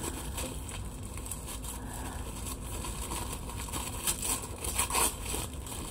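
Faint rustling and crinkling of packaging as craft supplies are handled and unwrapped, with a few soft taps and scrapes over a steady low hum.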